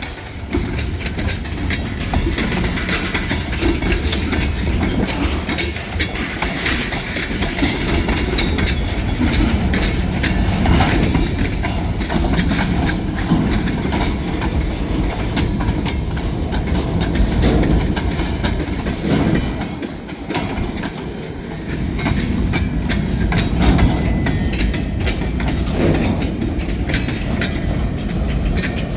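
Freight cars of a passing train rolling by, their wheels clicking steadily over the rail joints with a continuous rumble. Strong wind buffets the microphone.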